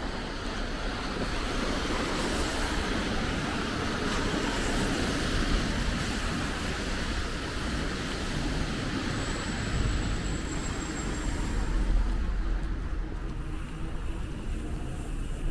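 Steady city street traffic noise, a wash of passing cars, with wind rumbling on the microphone of a moving bicycle.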